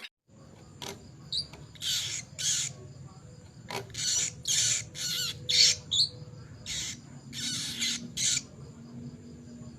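A caged songbird giving a string of about a dozen short, harsh, raspy calls at irregular intervals, over a faint low hum.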